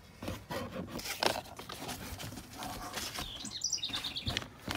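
Knives and other items being handled in a box: scattered clicks, knocks and rustles. About three and a half seconds in there is a brief run of high chirps, like a small bird.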